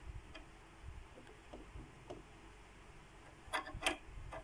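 Faint small clicks and ticks of a sewing machine bobbin being handled over the needle plate and bobbin compartment, with two sharper clicks near the end.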